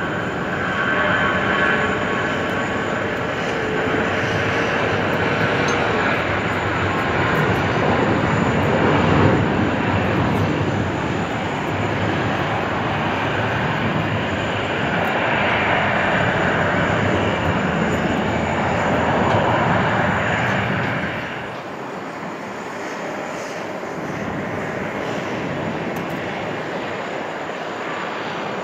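Boeing 747-400F freighter's four jet engines running loud and steady as it rolls out after landing. About three-quarters of the way through, the sound drops in level and loses its low rumble.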